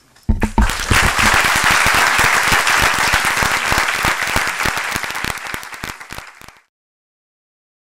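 Large audience applauding with many hands clapping. The applause starts a moment in, eases slightly, then cuts off suddenly about six and a half seconds in.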